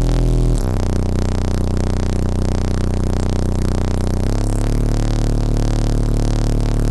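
A car audio subwoofer system playing sustained deep bass notes at high volume, heard inside the vehicle's cabin. The bass steps to a new pitch about half a second in and again just after four seconds.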